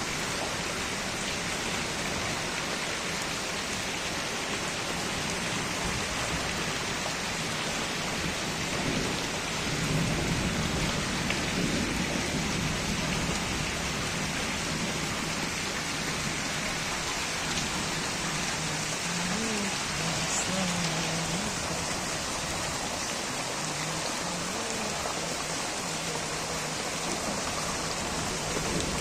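Heavy rain pouring steadily onto a flooded street, a continuous hiss of rain on standing water that swells slightly about a third of the way in.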